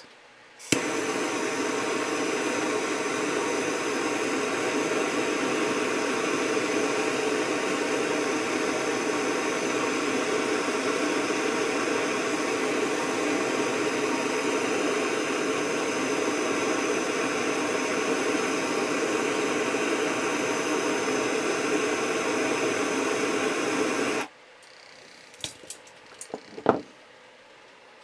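Handheld propane torch flame hissing steadily while it heats a copper refrigeration fitting for soldering. It starts suddenly about a second in and cuts off abruptly a few seconds before the end, followed by a few light clicks.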